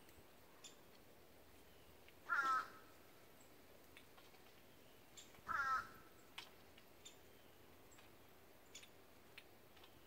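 A bird calling twice, about three seconds apart, each call about half a second long, with a few faint short ticks in between.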